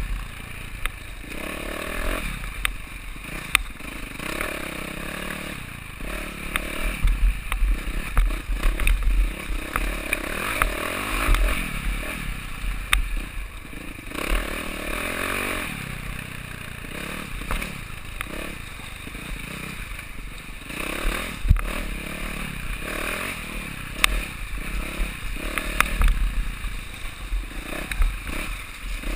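Enduro dirt bike's engine revving up and down as it rides over a rocky trail, with scattered sharp clatter from stones and the bike's parts.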